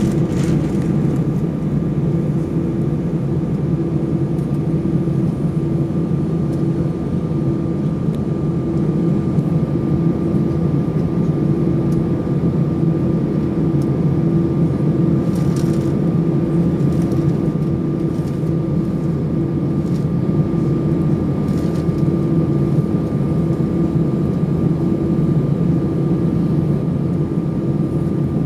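Steady cabin drone inside an Airbus A320 with its engines at low power: a low hum with a faint steady high whine above it.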